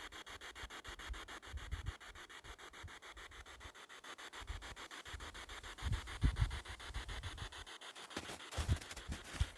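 Faint hiss with a rapid, even ticking running through it, under low irregular bumps and rustling from handling. Near the end come a few sharper rustles.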